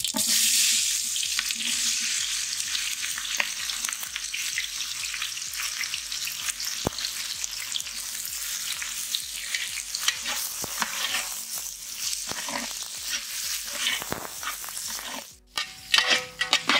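Sliced onions dropped into hot oil in a large metal pot, sizzling loudly at first and then frying more gently as a ladle stirs them, with scattered clicks and scrapes of the ladle against the pot. The sizzle breaks off suddenly near the end.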